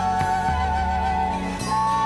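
Music: a hip-hop track, with a held, slightly wavering melody line over a low bass.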